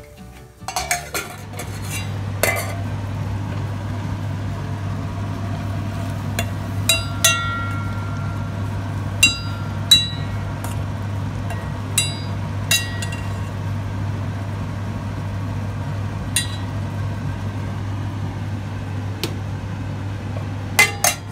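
Steel spoon stirring tomato masala in a stainless steel pot, clinking and ringing against the pot's sides at irregular moments, over a steady low hum.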